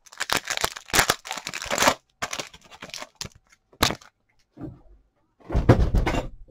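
Foil wrapper of a trading card pack being crinkled and torn open, in dense crackling bursts at first, then scattered sharp clicks, with a louder rustle near the end.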